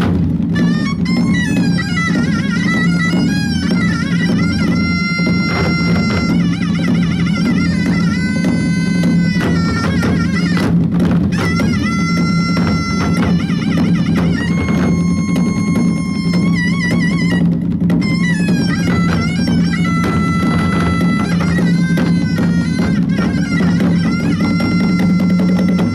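Korean traditional music: a high, wavering wind-instrument melody with sliding, bending notes over a steady low drone, with drums.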